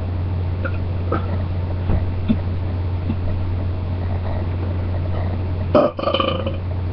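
A person belching once near the end, a loud, pitched belch lasting under a second, over a steady low hum.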